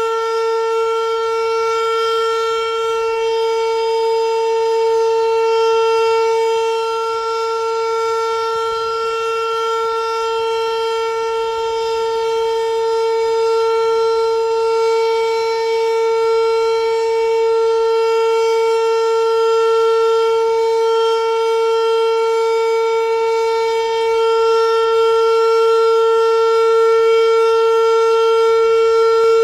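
Federal Signal Model 5 eight-port outdoor warning siren sounding a full alert: one steady tone held at a constant pitch, swelling and fading slightly in loudness.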